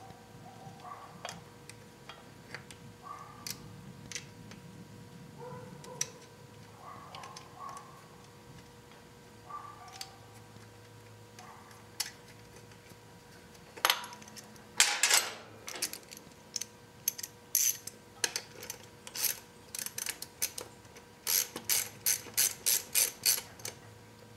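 Hand ratchet wrench clicking in quick runs as a bolt is turned in to fasten the brake hose guide on a motorcycle's rear brake caliper. Before that there are faint clicks of metal parts being handled.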